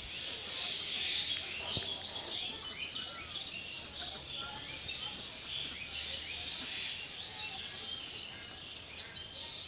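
Many small birds chirping and twittering at once, a dense, continuous chorus of short high calls.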